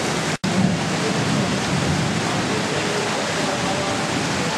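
Steady, loud rushing noise of a storm, rain and wind, cut off for a split second less than half a second in.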